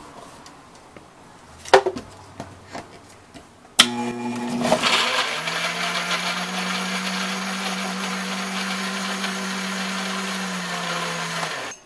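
Countertop blender with a knock about two seconds in as the jar is handled. The motor starts suddenly about four seconds in, climbs in pitch, then runs steadily as it purées chopped tomatillos, serrano chiles and a little water into a raw green salsa. It shuts off just before the end.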